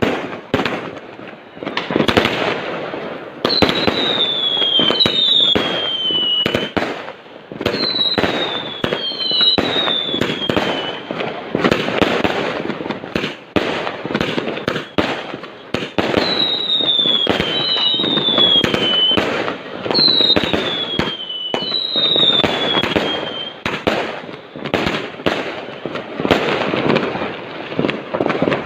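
Fireworks going off in a dense run of bangs and crackles, with whistling shells that give falling whistles, mostly in pairs, again and again.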